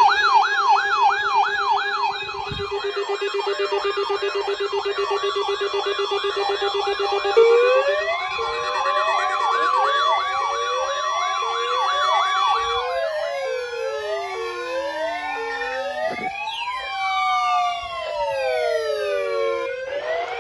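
Several sirens sounding over one another. At first a fast, steady wail runs over a low steady tone. From about seven seconds in, short rising whoops come about once a second, then give way to many slow rising-and-falling wails overlapping near the end.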